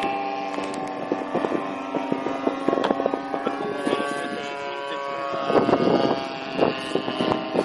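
Radio-controlled 3D aerobatic model plane's motor and propeller droning steadily in flight, the pitch falling slightly at first. There is a rougher, louder patch about five and a half seconds in.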